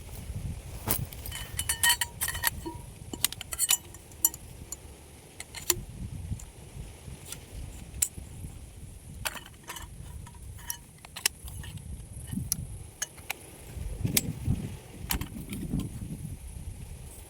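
Objects being handled, giving a run of irregular clicks and light metallic clinks, a few with a brief ring in the first few seconds, over a low uneven rumble.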